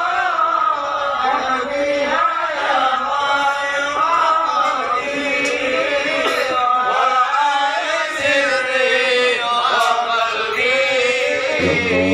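Men chanting sholawat, Islamic devotional verses in praise of the Prophet, in a continuous melodic line. A low, steady accompaniment comes in near the end.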